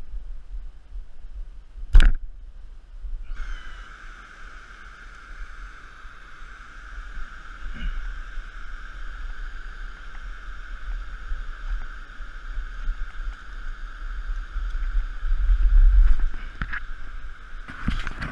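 Steady rush of a river running over rocks in a gorge, starting suddenly a few seconds in, over a low rumble of wind on the microphone. One sharp knock sounds about two seconds in.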